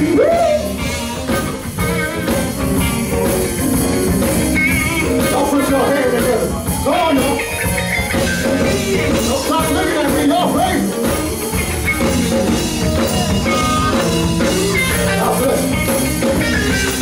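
Live gospel band playing steadily, with drums, bass guitar, electric guitar and keyboard, and singing voices over it at times.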